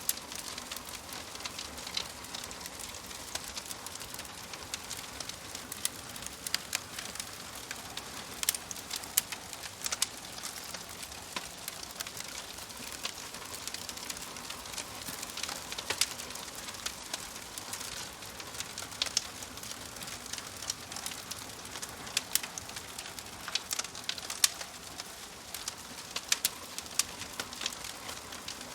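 Wood fire crackling in a fireplace: a steady hiss with frequent irregular sharp pops and snaps from the burning logs.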